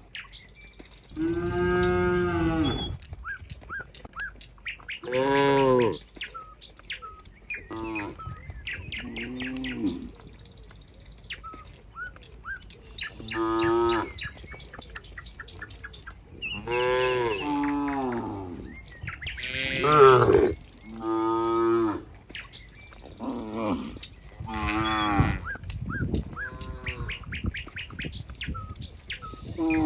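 Cattle mooing again and again: about a dozen moos from several cows, some short and some drawn out for a couple of seconds, at times overlapping.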